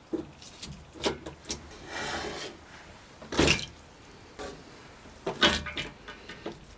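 A run of separate knocks and scraping sounds, with a longer rubbing scrape about two seconds in and the sharpest knocks about three and a half and five and a half seconds in.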